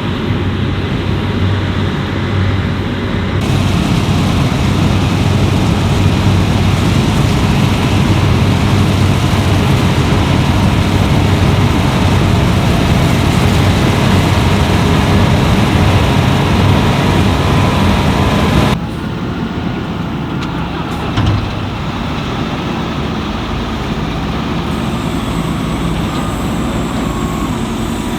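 Fendt Ideal 10T combine harvester running steadily while harvesting wheat: a dense machine noise over a low engine hum. The sound changes abruptly twice, about three seconds in and about two-thirds through, and is a little quieter after the second change.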